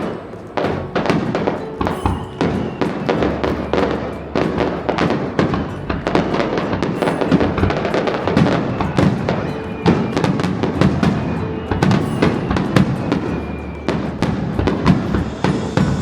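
Aerial fireworks bursting in a dense barrage: dozens of sharp bangs and crackles in quick succession over a continuous rumble, with music playing along.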